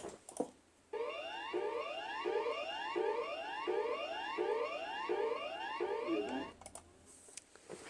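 Australian emergency alert tone, used both for TV alerts and as a siren signal: repeated electronic rising sweeps, about two a second. It starts about a second in and cuts off after about five and a half seconds.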